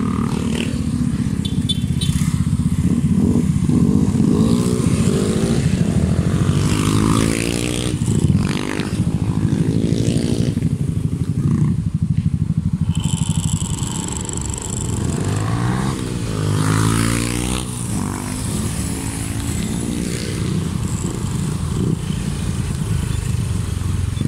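Motor scooter engines revving past one after another, each rising and then falling in pitch as it goes by.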